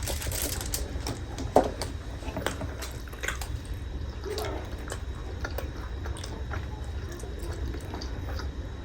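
Close-up wet chewing and eating sounds, with scattered small clicks and one sharper click about one and a half seconds in.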